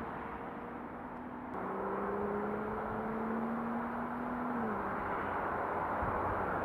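Road traffic noise: a steady roar of passing vehicles, with one engine's hum that drops in pitch as it goes by about four and a half seconds in.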